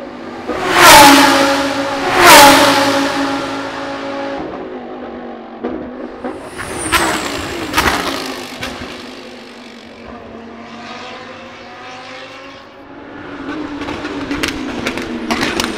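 Lamborghini Huracán race cars' 5.2-litre V10 engines at full throttle: two cars scream past about a second apart, each pitch dropping as it goes by. Then engines accelerating through the gears, fading and building again, with sharp cracks from the exhaust in the middle and near the end.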